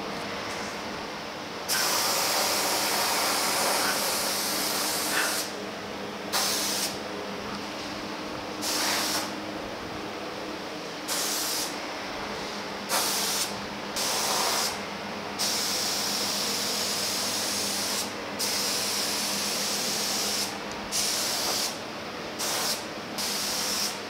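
Gravity-feed spray gun spraying thin self-etching primer at low air pressure, about 8 to 10 PSI. The trigger is pulled on and off about a dozen times, giving short bursts of hiss and a few longer passes of several seconds.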